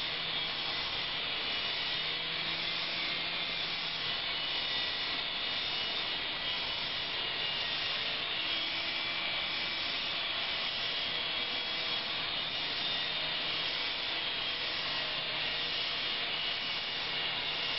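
Syma S107 mini coaxial RC helicopter flying, its small electric motors and rotors whirring steadily with a thin high whine.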